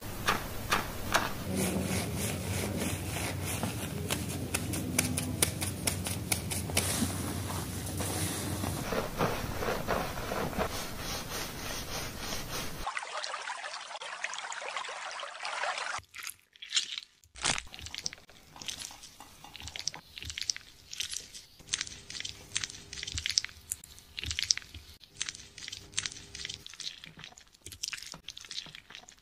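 Hands scrubbing a foam-lathered scalp: a dense, wet crackle and squish of shampoo bubbles. After that, a few seconds of running water rinsing the hair, then sparser wet squelches and taps of gloved hands massaging oiled skin.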